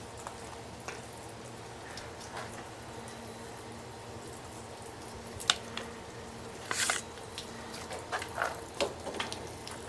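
A few light clicks and knocks of hand-tool work, the clearest about five and a half and seven seconds in, over a faint steady hum.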